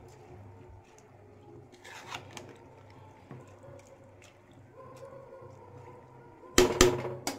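A steel spoon stirs rice through boiling water in a large aluminium pot, with scraping and splashing over a low steady hum. Near the end come a few loud metal clanks of the spoon against the pot.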